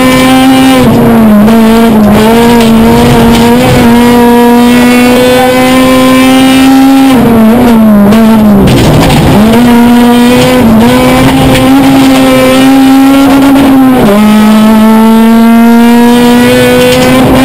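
Honda Civic Type R rally car's four-cylinder engine heard from inside the cockpit, running hard at high revs with the pitch held high through long stretches. About seven seconds in the revs fall in steps and dip low for a moment, then climb again; another sudden drop at an upshift comes about fourteen seconds in, with the revs rising again near the end.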